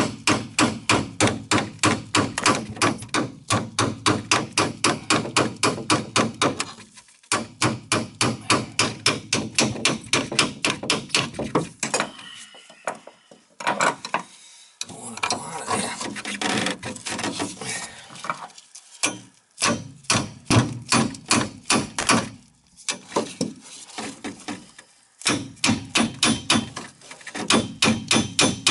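Hammer striking a screwdriver held against an old metal tub drain fitting: quick, repeated metallic taps, a few a second, in bursts with short pauses, and a rougher, irregular stretch in the middle. It is the sound of a stuck, corroded drain fitting being knocked loose.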